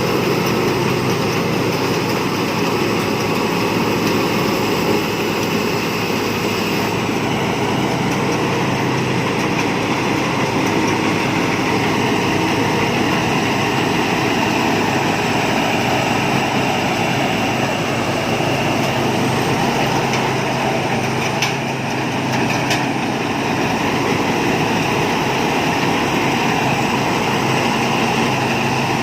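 Thai Seng Yont rice combine harvester running steadily under load while harvesting rice, with a continuous engine and machinery din.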